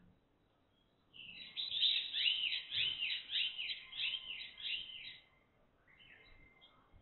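Eurasian tree sparrow chirping: a quick run of about ten repeated chirps lasting some four seconds, followed by a few fainter chirps near the end.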